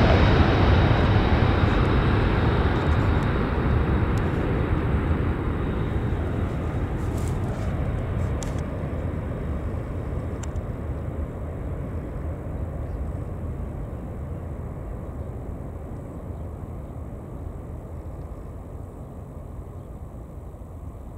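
A BAe 146-100's four turbofan engines at climb power as the jet climbs away after takeoff, the steady noise fading evenly throughout. A thin high whine fades out within the first few seconds, leaving a low rumble.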